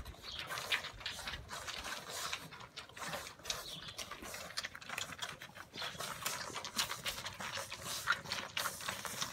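A litter of Brittany puppies suckling from their mother, making a quick, irregular run of small clicking and smacking sounds.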